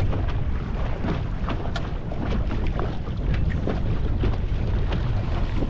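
Wind buffeting the microphone on an aluminium boat in choppy water, with frequent short slaps and knocks of chop against the hull.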